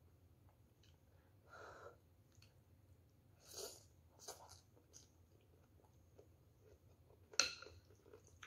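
Quiet eating of a bowl of noodle soup: a few short slurps as noodles are sucked off a metal spoon and chopsticks, with faint chewing. Near the end a sharp tap as the metal spoon strikes the bowl, followed by light clinks.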